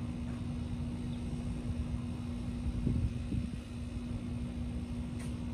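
Vehicle engine running steadily: a low rumble with a steady hum.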